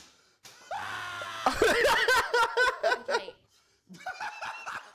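Loud laughter in quick wavering pulses, building from about half a second in and dying away after about three seconds, followed by brief talk.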